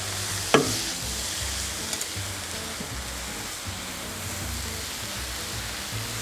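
Cauliflower steak frying in a pan, with a steady sizzle, under background music. A sharp knock about half a second in.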